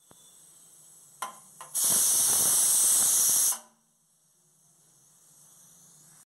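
Aluminium pressure cooker releasing steam through its weight valve: a loud hiss starts about two seconds in, after a couple of faint clicks, and cuts off sharply under two seconds later. The cooker is at pressure with rice inside that is nearly cooked.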